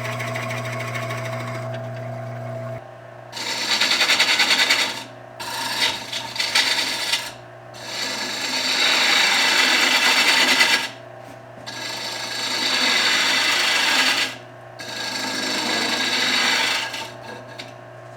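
Small Rikon wood lathe motor humming steadily, its hum dropping about three seconds in. Over it, a tool is pressed against the spinning wood in five rasping passes of about two seconds each, with short pauses between.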